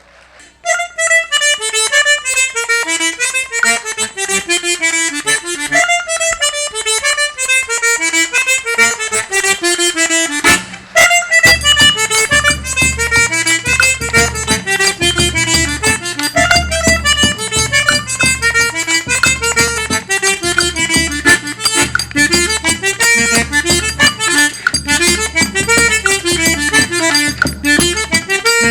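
Eight-bass button accordion (sanfona de oito baixos) playing a lively instrumental: quick descending melodic runs alone for about ten seconds, then after a brief break a bass line and a steady beat come in under the melody.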